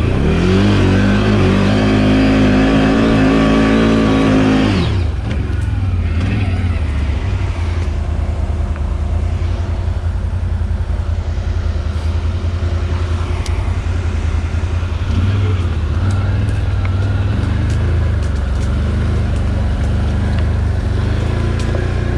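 Can-Am Outlander 1000 XMR ATV's V-twin engine revving up, its pitch rising for about five seconds, then dropping back and running on at a lower, steady speed.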